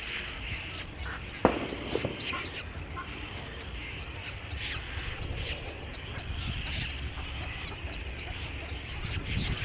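Many birds chirping at once, a steady high twittering with short calls scattered throughout, and a sharp tap about one and a half seconds in.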